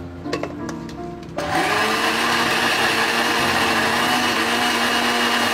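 A few plastic clicks as the blender lid is fitted. About a second and a half in, the countertop blender's motor starts, quickly spinning up, then runs steadily and loudly as it purées chunks of sponge gourd with egg.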